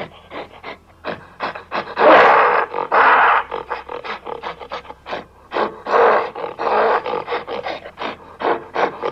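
Gorilla roaring: four loud roars in two pairs, the first pair about two seconds in and the loudest, the second about six seconds in, over a quick, steady rhythmic beat.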